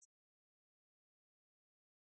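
Near silence, with one faint short click at the very start.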